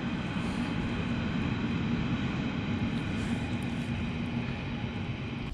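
A steady mechanical drone, even in level throughout, with a low hum under it.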